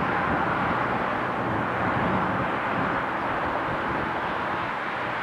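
Freight train rolling past: a steady rumbling noise of wagons running on the rails.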